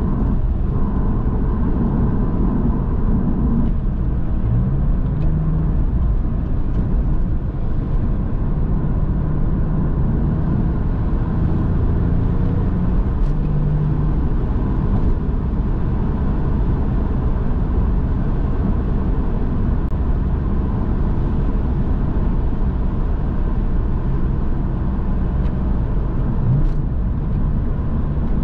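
Porsche 911's flat-six engine running at a steady cruise with continuous road and tyre noise. The engine note rises briefly a few times.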